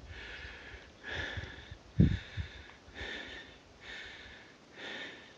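A person breathing hard after walking uphill, with about one breath a second close to the microphone. A low bump about two seconds in is the hand-held camera being handled.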